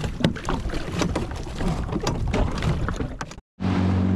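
Irregular knocks and water splashes on a jet ski with wind hiss, as a small live fish is handled. After an abrupt cut near the end, a jet ski engine runs with a steady low drone as the craft travels.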